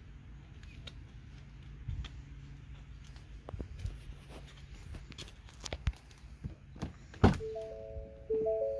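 Low rumble and scattered clicks, with a single loud thunk about seven seconds in; right after it a simple tune of clear, evenly held notes begins.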